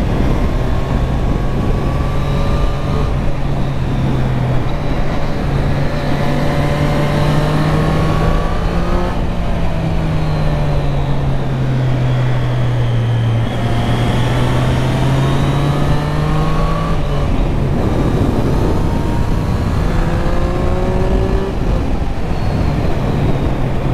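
Triumph Street Triple RS's 765 cc inline-three engine running under way, its note climbing and dropping back several times as the rider works through the gears, with wind rushing over a helmet microphone.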